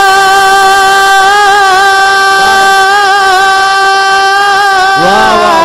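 Male voice singing a durood recitation, holding one long note with slight wavering ornaments over a steady drone. Near the end a new sung phrase starts, its pitch sliding up and down.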